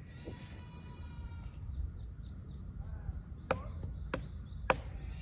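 Wood being chopped: three sharp blade strikes into wood, about half a second apart, starting about three and a half seconds in.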